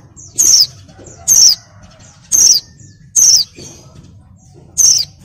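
Female white-eye (pleci) calling: five loud, short, high notes about a second apart, each sliding downward in pitch. It is the call of a female in breeding condition, used to stir male white-eyes into song.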